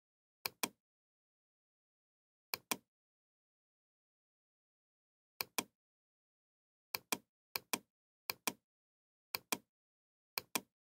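Computer mouse clicking: eight pairs of short, sharp clicks at irregular intervals, with dead silence between them.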